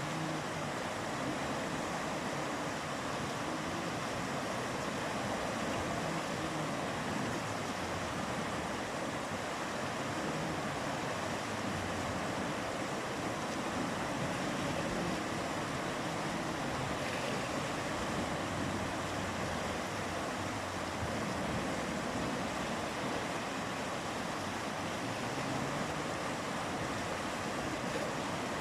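Mountain river flowing, a steady, unbroken rush of water.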